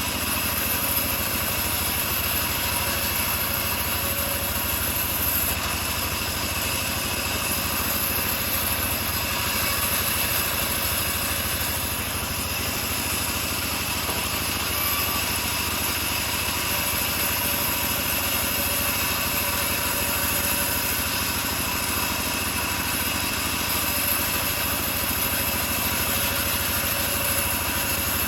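Engine-driven homemade band sawmill running steadily at a constant speed while sawing teak, with no let-up or change in pitch.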